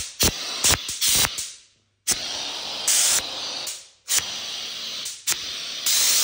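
Steam hissing in spurts from the lance of a Bieffe Farinelli steam cleaner, with several short, louder blasts. It cuts off twice and starts again.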